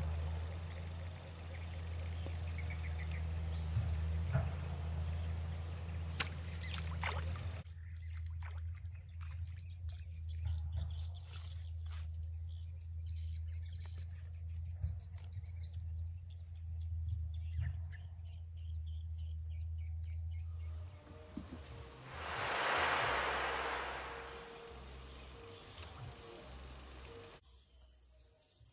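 Steady high-pitched insect drone with a low rumble underneath. The drone drops out about eight seconds in and returns around twenty-one seconds, followed a couple of seconds later by a louder rushing swell.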